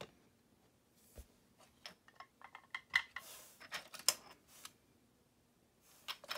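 Plastic clicks, taps and rattles as a 1:72 plastic model KrAZ 6322 truck and its tank-transporter trailer are handled on a wooden floor, with a short scrape about three seconds in and a few more clicks near the end.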